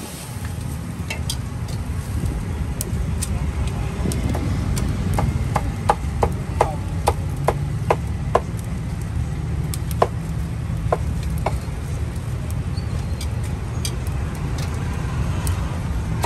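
Meat cleaver chopping roast poultry on a wooden chopping block: about a dozen sharp chops over some six seconds, starting about five seconds in. Under it runs a steady low rumble of street traffic.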